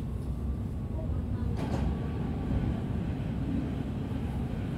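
Interior of a Berlin S-Bahn class 483/484 electric train under way: a steady low rumble of wheels on rails with a faint steady whine, and one short clatter about two seconds in.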